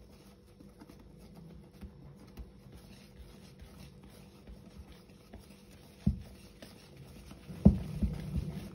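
Hand whisk mixing flour into a wet batter in a bowl: a soft, steady scratching and rubbing. Near the end come two knocks about a second and a half apart, the second the loudest, after which the mixing grows louder.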